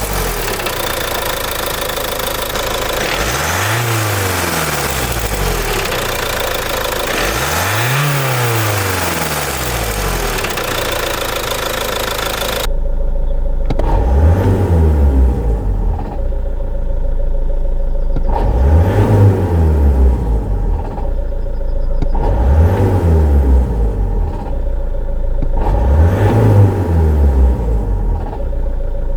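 Car engine with a worn dual-mass flywheel, revved up and let fall back to idle about six times, each rev a rising then falling pitch. A steady hiss over the first half cuts off suddenly partway through.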